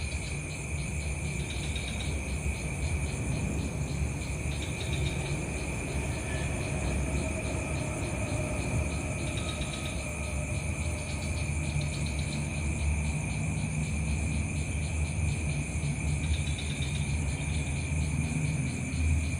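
Insects chirping in a steady, fast pulsing trill over a continuous low rumble.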